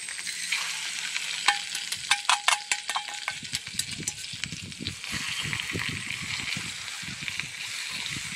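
Pieces of basa fish sizzling as they go into hot oil-and-sugar caramel in a clay pot. A quick run of sharp clinks comes about one and a half to three seconds in as the fish is tipped from a metal bowl, followed by stirring with chopsticks in the sizzling sauce.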